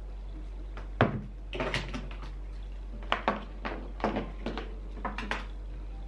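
A book and other things being set down and moved about on a wooden desk: a string of knocks and thuds, the sharpest about a second in, with more in small clusters over the next few seconds.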